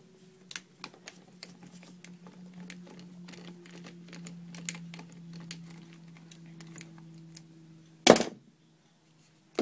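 Irregular small clicks and ticks of a screwdriver turning out the motor-plate screws on an airsoft M4, over a steady low hum. A loud knock comes about eight seconds in, then the sound cuts out.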